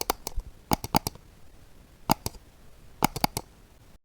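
Irregular sharp clicks and taps, about a dozen, some single and some in quick clusters of two or three, over faint room hiss. They stop abruptly near the end.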